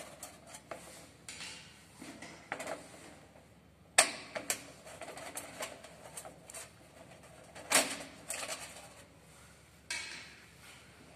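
Screwdriver work on a halogen room heater's sheet-steel reflector plate: scattered metallic clicks and clatters as screws are turned out and the tool and loose metal knock together, with sharp clicks about four seconds in and again near eight seconds.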